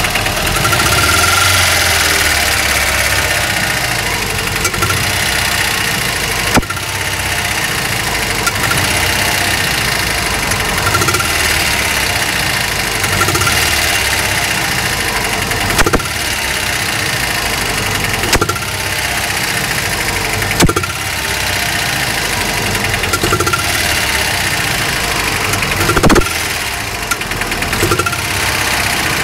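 An engine running steadily with a sharp knock every two to three seconds, the horrible noise that marks a fault in it.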